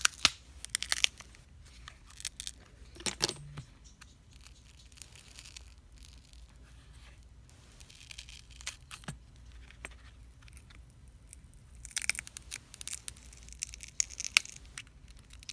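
Battery adhesive tearing and peeling as a phone battery is pried out with a plastic pry tool, in irregular bursts of scraping, crackling and sharp clicks, busiest near the start and again near the end.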